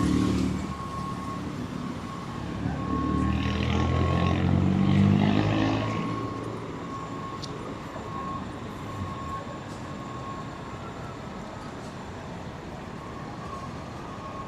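A vehicle passes on a city street, its rumble rising over about two seconds and fading away just past the middle, over a steady hum of traffic. A thin high beep sounds on and off throughout.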